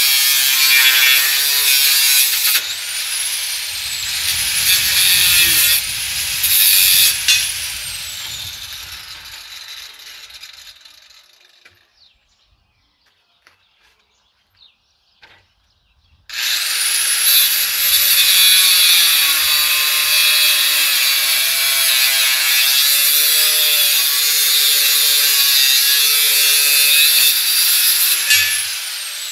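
Electric angle grinder with a cut-off disc cutting metal bar stock: a loud high whine and grinding whose pitch dips and recovers as it bites, then the motor winds down to near silence. A few seconds later it is switched on again with a sudden start and cuts steadily until just before the end.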